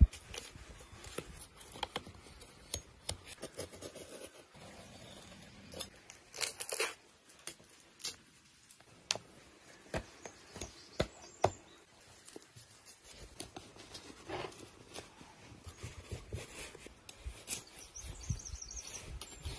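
A large raw rib rack being handled and cut with a knife on a wooden board: scattered soft knocks and wet slaps of the meat, with short cutting sounds, in irregular bursts with quiet gaps.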